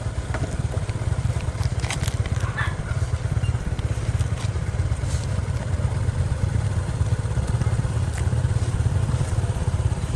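Steady low rumble of motorbike street traffic, with a few light clicks and clatters.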